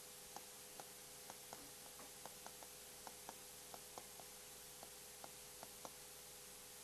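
Faint, light taps of a stylus touching down on a pen tablet while handwriting, coming two or three a second at uneven intervals, over a steady hiss and a low electrical hum.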